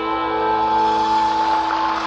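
Live rock band holding sustained chords, with electric guitar prominent.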